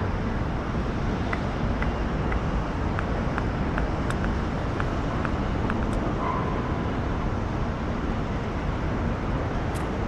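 Steady outdoor ambience: a continuous low noise with scattered faint clicks.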